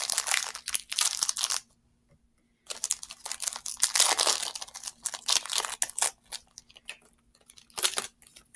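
A Yu-Gi-Oh! Speed Duel booster pack's foil wrapper is torn open and crinkled. The rustling comes in two long bouts with a pause of about a second between them, then a few lighter crackles near the end.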